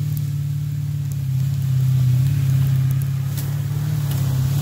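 Mercedes ML430's 4.3-litre V8, with intake, muffler and resonator delete, running steadily under throttle on a dirt trail, with scattered clicks over the engine note and a sharp knock at the very end.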